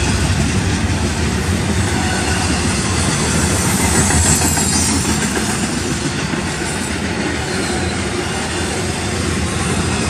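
Double-stacked intermodal container well cars rolling past: a steady, loud rumble and rattle of steel wheels on rail, with a brief brighter high hiss about four seconds in.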